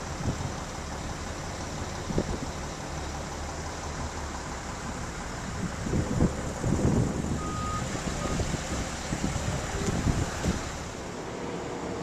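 Steady low rumble of vehicle engines and traffic, with a few dull thumps, the loudest about six to seven seconds in, and a short high beep about seven and a half seconds in.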